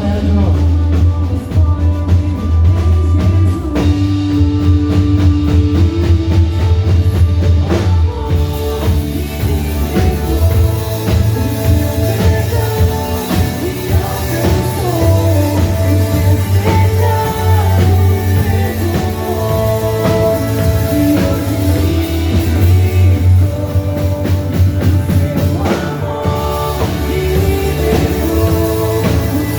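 Worship band music: singing over drums and guitar, with a strong steady bass.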